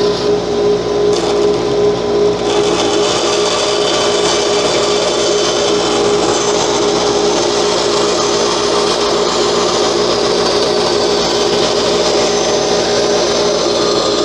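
A woodworking power tool running steadily with a constant hum while it works wood.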